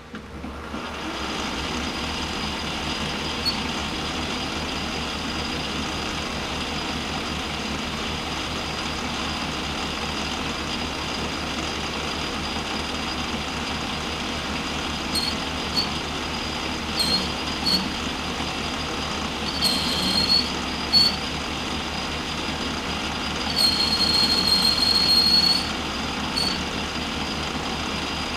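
Metal lathe spindle starting up and running steadily with a constant high whine. From about halfway in, the cutting tool gives short high squeals on the spinning workpiece, the longest lasting about two seconds.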